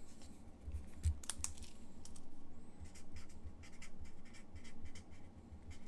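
Felt-tip marker scratching as it writes on a paper note stuck to a plastic card holder, with scattered light clicks and taps as the hard plastic case is handled.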